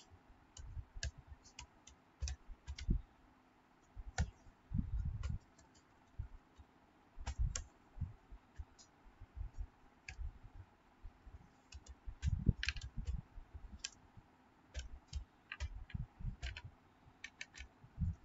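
Computer keyboard being typed on: irregular key clicks with dull low thumps, in short runs with pauses between them.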